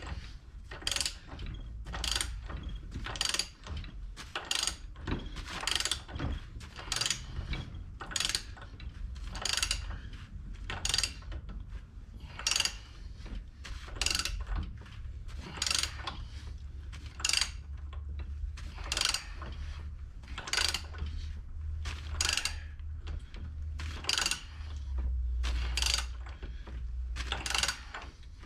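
Ratchet wrench clicking in short repeated bursts, about one stroke every three-quarters of a second, as the pinion nut on a Ford 9-inch pinion support is tightened down to set the pinion bearing preload. A low steady rumble lies underneath.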